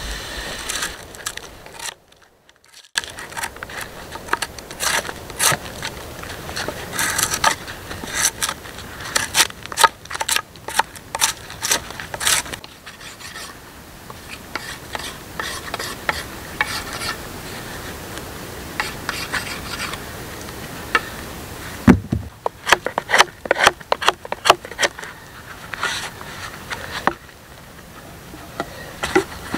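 Steel blade scraping and shaving along a wooden log, in runs of quick rasping strokes with splinters cracking off, and one heavier knock about two-thirds of the way in.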